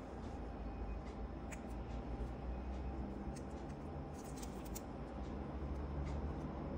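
Steel nail nippers snipping at the edge of a toenail: a few faint, sharp clicks, bunched together about four to five seconds in, over a steady low hum.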